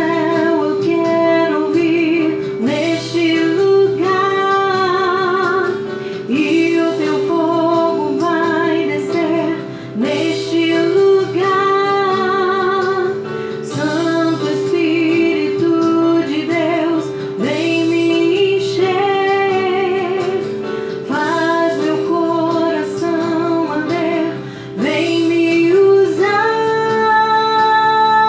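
A woman singing a worship song with vibrato over a guitar accompaniment.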